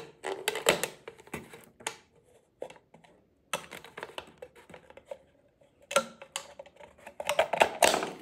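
A knife cutting through a plastic drink bottle: irregular clicks, scrapes and crackles of the plastic, with a pause about two seconds in and a denser run of cuts near the end.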